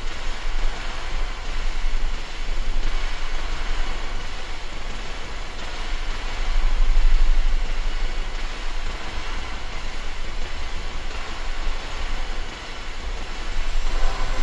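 Dark ambient drone: a deep rumble under a dense, hiss-like wash of noise, swelling around two and seven seconds in and dipping briefly near the end.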